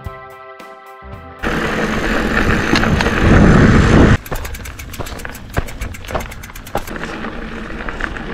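Background music with sustained tones, then a sudden loud rush of wind and rolling noise from a mountain bike ride that builds and cuts off abruptly about four seconds in. Quieter riding noise with many sharp ticks and clatters follows.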